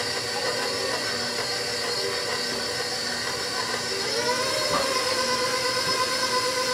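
Electric tilt-head stand mixer running steadily, its motor humming as the beater turns cookie dough in a stainless steel bowl.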